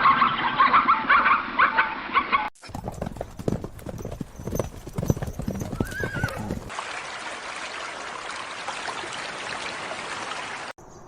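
Horse sounds: a whinny in the first couple of seconds, then hooves clip-clopping as a run of sharp knocks. The last few seconds are a steady hiss.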